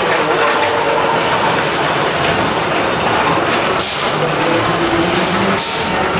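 Spinning coaster car clattering up its chain lift, a steady mechanical rattle and ratcheting. Two short hissing swells come through, one near the middle and one near the end.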